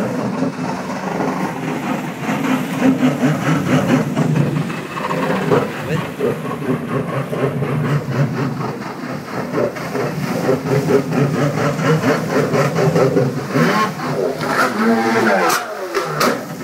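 Stand-up jet ski engine revving hard in a small pool over churning, splashing water. Its pitch climbs and drops repeatedly, with a falling sweep near the end as the ski launches into a flip.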